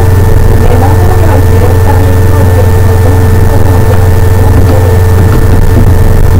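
Loud, steady electrical hum: a constant low drone with several thin steady tones above it, unchanging throughout, with faint wavering sounds buried beneath.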